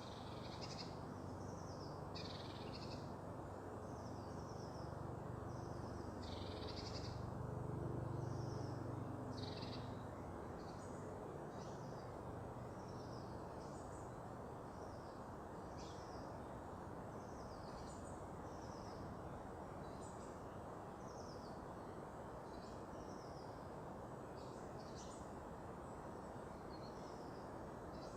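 Small birds calling: many short, high chirps and call notes scattered throughout, over a steady low background rumble. About six seconds in, a low hum swells and fades away again by about ten seconds.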